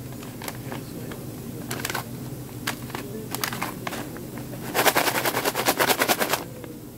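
Paper bags of Smarties being handled, with crinkles and scattered clicks. About five seconds in comes a burst of rapid rattling, lasting about a second and a half, as a bag is shaken and the candy-coated chocolates inside knock together.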